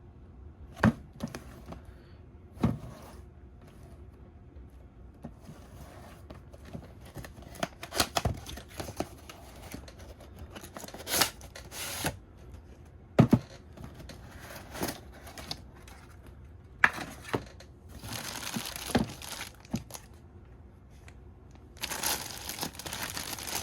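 Toy packaging being opened and handled: scattered knocks and clicks of the box and plastic parts, with stretches of crinkling plastic wrap rustled near the end.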